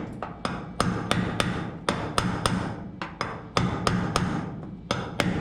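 Hammer tapping a sheet-steel cab corner patch panel into position, fitting it before tack welding. The strikes are sharp and come in a quick, irregular run of about three or four a second, with a steady low hum underneath.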